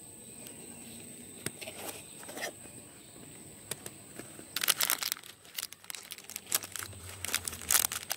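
A small cardboard jewellery box is opened by hand with a few faint clicks and scrapes. From about four and a half seconds in there are bursts of plastic wrapping crinkling as the earrings inside are handled.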